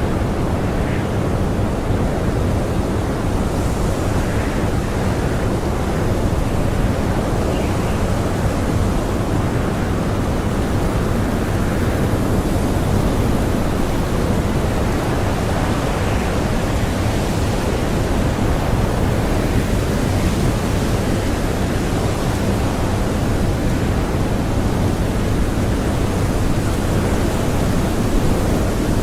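Strong blizzard wind blowing steadily, a dense, even rush weighted to the low end with faint swells above it.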